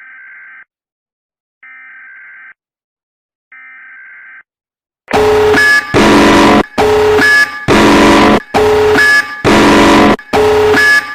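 Emergency Alert System alarm audio: three short, faint buzzing data bursts about a second apart, like an EAS header, then from about five seconds in a loud, harsh, distorted alarm blaring in rapid pulses a little faster than once a second.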